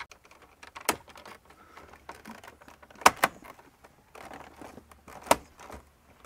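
Plastic clips of a Lexus LX470's wood-grain dash trim panel snapping into place as the panel is pressed home by hand: a sharp click about a second in, a quick pair around three seconds, and one more near five seconds, with faint handling and rubbing of plastic in between.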